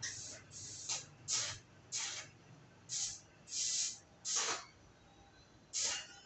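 TIG welding arc on steel, struck in a series of short hissing bursts, about nine, each under half a second and with uneven gaps between them.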